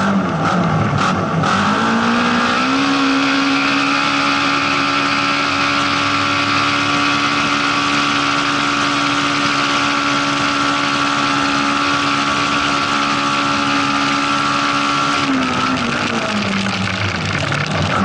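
Rally car engine heard from inside the cabin, the revs climbing over the first few seconds and then held steady and high on a fast stretch, dropping off about three seconds before the end and picking up again. There is steady road noise from the dirt road under it.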